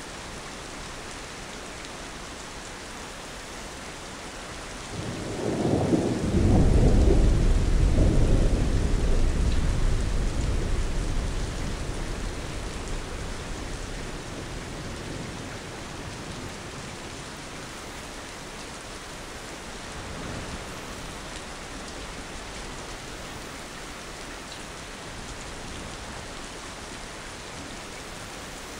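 Steady rain with a roll of thunder that swells about five seconds in, rumbles loudly for several seconds and slowly fades, with a fainter rumble later on.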